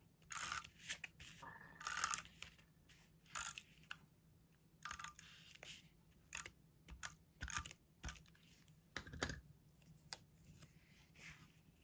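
Papercraft pieces being handled on a tabletop: a string of short, irregular rustles, scrapes and light taps of card and a plastic slide mount, with the loudest about three-quarters of the way through.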